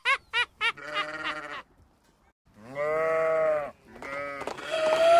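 Bleating animal calls: a quick run of short bleats, about four a second, a pause, then one long drawn-out bleat and another rising one near the end.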